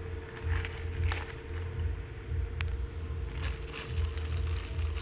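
Low rumbling handling noise with a few faint clicks and crinkles, as ingredients and packets are handled beside a stone mortar, over a faint steady hum.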